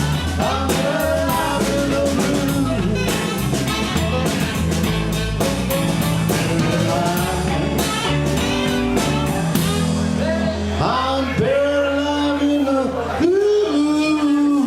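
Live blues-rock band playing the closing bars of a song. There is a driving drum beat with the band, and about ten seconds in the drums stop, leaving long held final notes with pitch bends.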